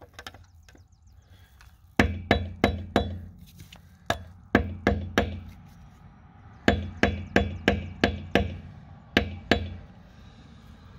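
Hammer striking a flat screwdriver wedged against the steel sleeve of a wheel lock nut, sharp metal-on-metal blows with a short ring, in four runs of about two to six strikes, roughly three a second. The blows chip the spinning sleeve back to expose the lug nut underneath.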